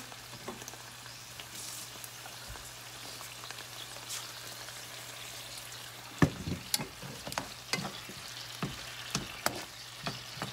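Sliced onions sizzling in a frying pan with a little water and sauce. From about six seconds in, a cooking utensil knocks and scrapes against the pan several times a second as the onions are stirred.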